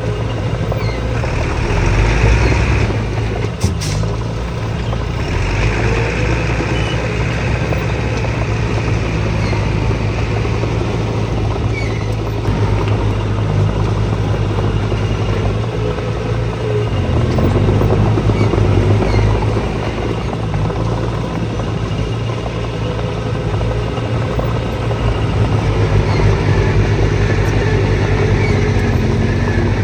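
Diesel engines of heavy earthmoving machinery (bulldozer and dump trucks) running steadily, swelling louder a few times.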